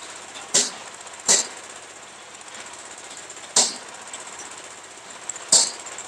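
Sharp metallic knocks on the steel mast frame of a lift-type concrete mixer, four of them at irregular intervals, each with a short ringing tail.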